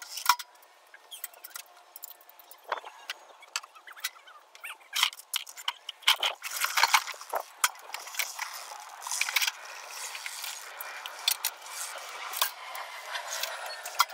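Steel portable engine hoist being handled, set up and rolled: irregular metal clanks, clicks and rattles as its parts knock together.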